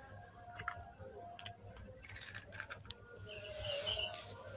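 Small plastic spoon clicking and scraping against a plastic Kinder Joy shell while scooping chocolate cream: a run of faint, irregular light clicks, with a soft rustle near the end.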